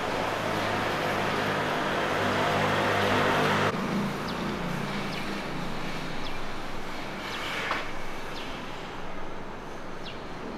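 Outdoor street ambience: a vehicle engine hum mixed with broad noise, growing louder over the first few seconds, then cut off abruptly. After the cut the ambience is quieter, with a few short high chirps and one rising squeak.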